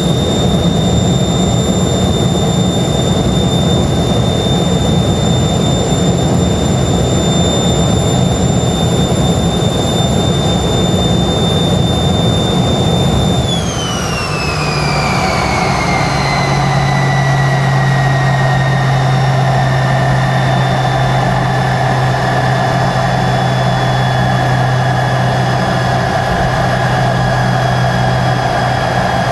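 The Tupolev Tu-134's rear-mounted Soloviev D-30 turbofans, heard inside the cabin, running with a steady high whine over a broad rush. About halfway through they spool down: the whine glides down in pitch and settles lower, and a low steady hum comes in, as the engines come back toward idle on the ground after landing.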